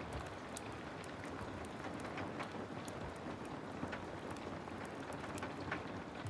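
Heavy rain falling steadily, mixed with the crackle of a wood fire: scattered sharp pops at irregular intervals over the even hiss of the rain.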